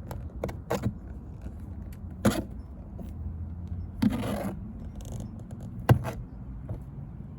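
Hand tools clicking and knocking against the door's trim panel, with a short scrape about four seconds in and the sharpest click near six seconds, as a Torx T30 fastener is worked on.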